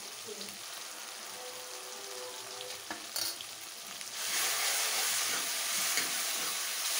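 Tomato masala frying in a metal kadai: a steady sizzle while it is stirred with a metal ladle, with a couple of clicks of the ladle on the pan near the middle. The sizzle grows louder about four seconds in as the stirring works the spice into the hot masala.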